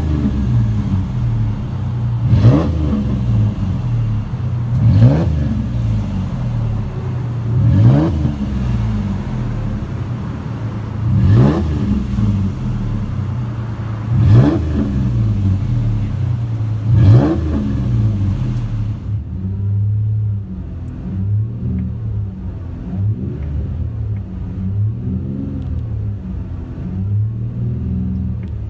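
2008 Ford Ranger's 4.0-litre V6 through a split dual exhaust with Flowmaster Super 44 mufflers, free-revved seven times about every three seconds, each rev rising and dropping back to idle, heard at the tailpipes. About two-thirds of the way through it changes to the sound inside the cab: duller and quieter revs, a moderate interior tone.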